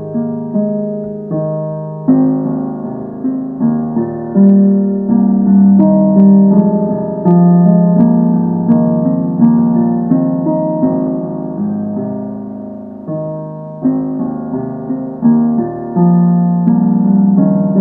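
Background music: piano playing chords and a melody, each note struck and then fading away.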